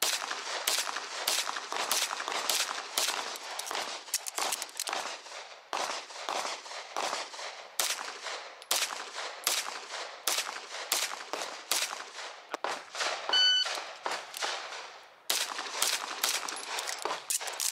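Semi-automatic pistol fired in quick strings, about two shots a second with short pauses between strings. A short electronic beep sounds about two-thirds of the way through.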